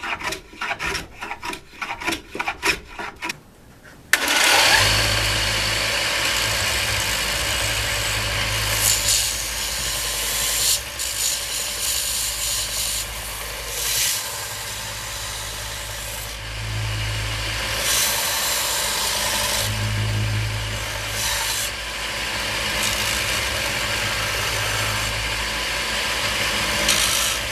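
Rhythmic hand-rasp strokes on wood, about three a second. About four seconds in, a bandsaw starts abruptly and runs with a steady low hum and hiss that swells and dips as it cuts the wooden scoop's curved handle grip.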